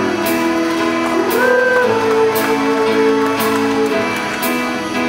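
Live band music: a sustained melody line over keyboard and plucked guitar chords, with a soft percussive tap keeping time about once a second.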